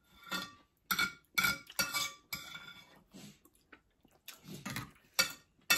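Spoon clinking against a bowl of porridge while eating: a series of sharp, briefly ringing clinks, with a lull in the middle.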